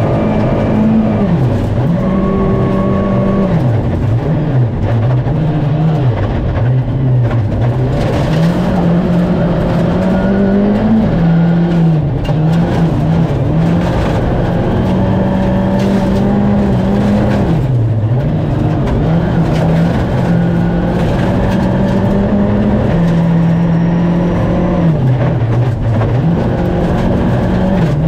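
Skoda Fabia Rally2 evo's turbocharged 1.6-litre four-cylinder engine heard from inside the cabin at stage pace, its revs climbing and dropping again and again through gear changes.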